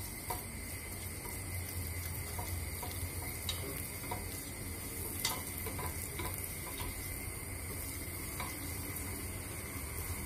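A silicone whisk stirring tomato and pepper paste into a toasted flour-and-oil roux in a stainless steel pot, over a steady low sizzle. The whisk taps lightly against the pot now and then, with one sharper click about halfway through.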